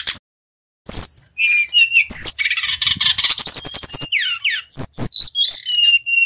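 Male brown-chested jungle flycatcher (Sikatan Rimba Dada Coklat) singing loudly and without pause: a fast, varied run of high whistles, trills and rapid chattering notes with falling slurred whistles, ending on a held whistle. After a brief opening chatter, the continuous song begins about a second in.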